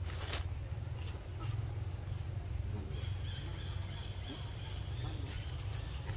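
Steady high-pitched insect drone, joined about three seconds in by a second, lower pulsing insect trill that stops near the end, over a constant low rumble. A brief crackle sounds right at the start.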